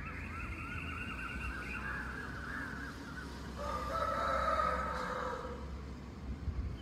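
Rooster crowing: one long, drawn-out crow from about three and a half seconds in, the loudest sound here. Before it, a wavering higher-pitched call runs through the first few seconds.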